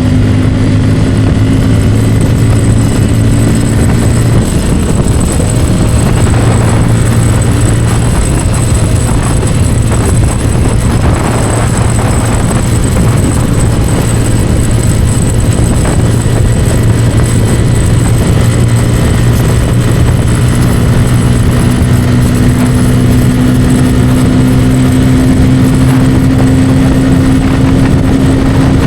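Bajaj Pulsar N250's single-cylinder engine running at high revs in top gear near its top speed. The engine's note holds steady throughout, under a constant rush of wind noise.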